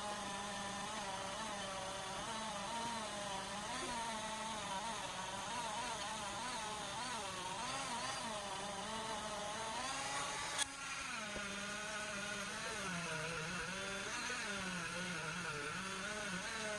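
An electric power tool's motor running continuously, its pitch wavering up and down as load on it changes, with one sharp click about ten seconds in.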